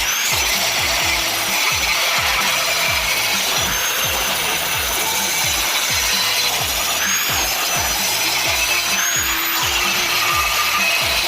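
Angle grinder grinding a weld bead down flush on steel, a continuous harsh grinding whose high pitch shifts a few times as it bears on the work.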